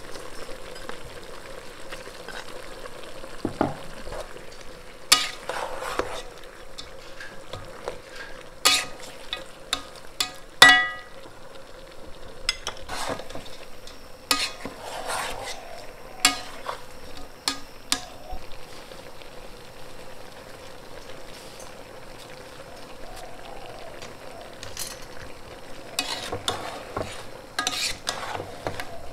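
A stir-fry sizzles in a metal pot on a gas burner while a spoon stirs it, scraping and clinking against the pot. Sharp clinks come throughout, and one rings out about ten seconds in.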